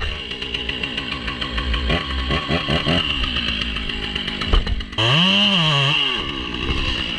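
Gas chainsaw running, its engine speed rising and falling. About five seconds in the sound changes abruptly, then the pitch climbs and drops once.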